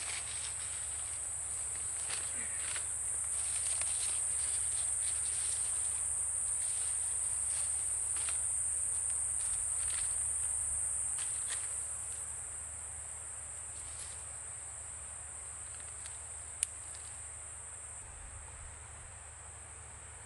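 Steady high-pitched chorus of insects, with faint scattered rustles and clicks beneath it; the chorus eases a little about twelve seconds in.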